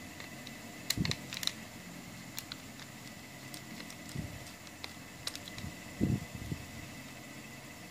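Small sharp clicks and light knocks of a screwdriver working the screws of a metal radio tuner module's chassis, with a couple of duller handling bumps about a second in and again about six seconds in, over a steady faint background hiss.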